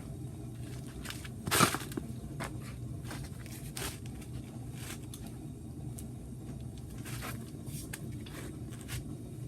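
A breaker bar and 36 mm socket work loose the tight front hub nut, with scraping and small clicks of metal on metal and one loud sharp crack about a second and a half in. A steady low hum runs underneath.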